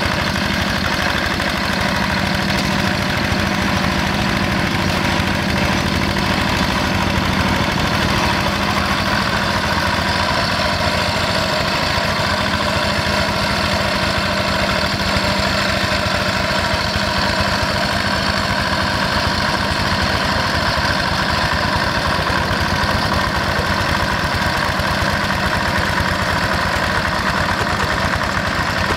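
Single-cylinder Yanmar diesel engine of a Quick G1000 two-wheel hand tractor running steadily under load as it ploughs through wet paddy mud, with an even diesel knock.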